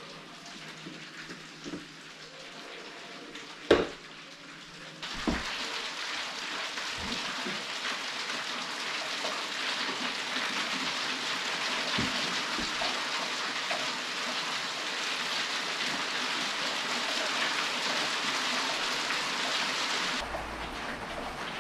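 Heavy rain heard from indoors as a steady hiss, fainter at first and much louder from about five seconds in. A single sharp knock sounds a little before the rain swells.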